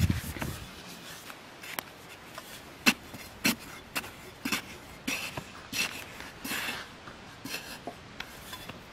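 Digging bar with a metal tip knocking and scraping into hard, dry soil, an irregular series of short knocks and scrapes, the loudest a few seconds in, with loose clumps of dirt crumbling.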